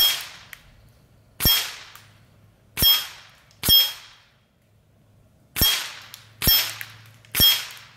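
JSB King 25-grain pellets from a .25 caliber Evanix Max Air semi-auto PCP rifle striking an AR500 steel plate, each hit a sharp clang with a short metallic ring. About eight hits come roughly a second apart, with a longer pause around the middle.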